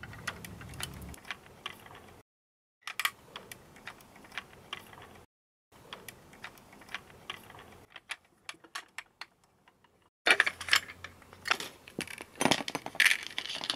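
Small screwdriver turning screws out of the underside of a die-cast metal toy truck: a run of small metallic clicks and ticks. Louder, busier clicking in the last few seconds comes as the loosened screws and parts are handled.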